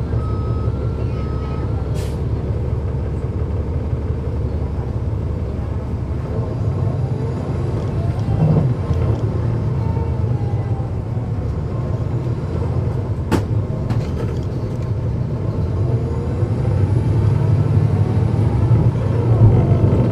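Cummins ISL9 diesel engine of a 2009 NABI 416 transit bus, heard on board while the bus is under way: a steady low drone whose pitch rises and falls as it pulls through the gears of its ZF automatic transmission. There are a few short beeps near the start and a couple of sharp clicks.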